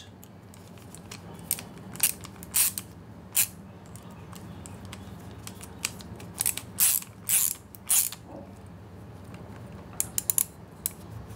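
Ratcheting screwdriver clicking in short irregular runs as it tightens the terminal locking screws of a Neutrik NL4FC SpeakON connector, with a quick cluster of clicks near the end.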